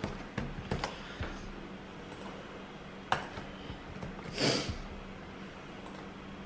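A few computer-mouse clicks over a faint steady hum, and about four and a half seconds in a short breath out through the nose.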